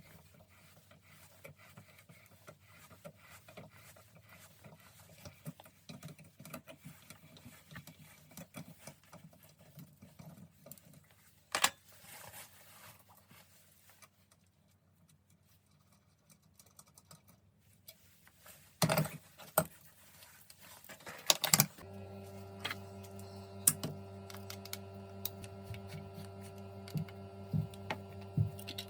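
Faint scattered clicks and taps with a few sharper clicks, then a steady hum from a small motor starts about three-quarters of the way in, with light ticking over it.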